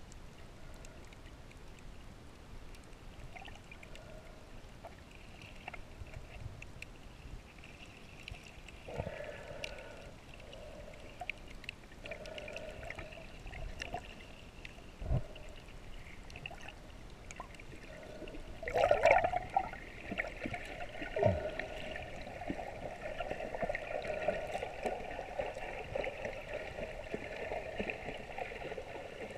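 Water sloshing and gurgling around an underwater camera held just below the surface in shallow reef water, muffled, with scattered clicks and a louder gurgling burst about two-thirds of the way through.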